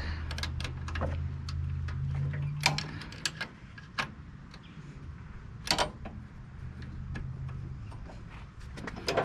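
Irregular metallic clicks and knocks of hand wrenches and parts being handled on a snowblower's belt guides. A low steady hum underneath fades out after about three seconds.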